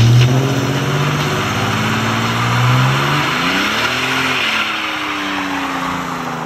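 Car engine revving hard through a burnout, with the rear tyre spinning and smoking against the pavement. The engine pitch holds, swells up and back down a little past halfway, then stays high, with a steady hiss of tyre noise throughout.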